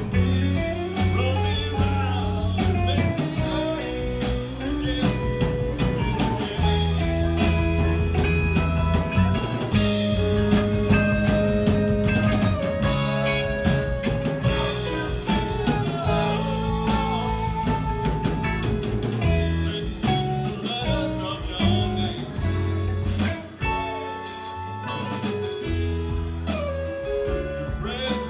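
Live rock band playing an instrumental jam: an electric guitar lead with bending notes over bass guitar and drum kit.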